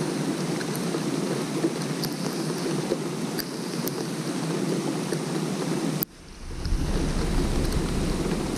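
Steady rain falling on a lake's surface: a dense hiss with scattered sharp drop ticks. About six seconds in the sound cuts out abruptly and fades back in, now with a low rumble underneath.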